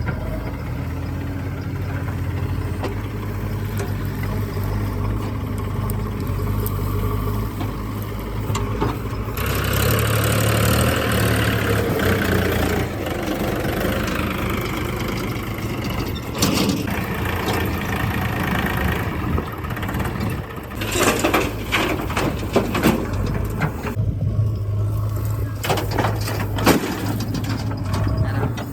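A JCB 3DX backhoe loader's diesel engine running steadily. It swells louder for a few seconds about a third of the way in, and a string of sharp knocks and clanks follows in the second half.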